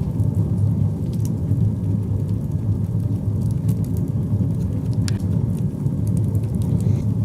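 Firewood burning in a small metal stove: a steady low rumble of the fire with a few sharp crackles, the loudest about five seconds in.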